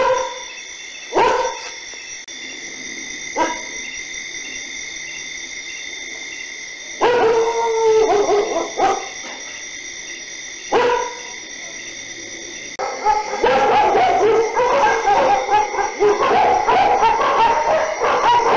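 Dogs barking: single barks a few seconds apart at first, then from about two-thirds of the way through, barking that overlaps and keeps going without a break. A steady high-pitched tone runs underneath throughout.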